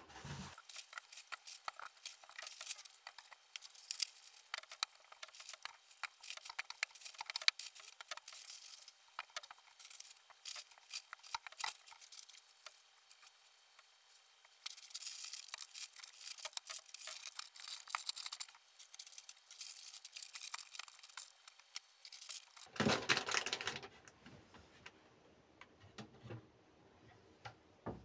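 Crinkling and tearing of the plastic wrap on toilet paper and paper towel packs, with light taps and clicks as the rolls are set on a cabinet shelf. A denser stretch of rustling comes in the second half, then a louder knock near the end.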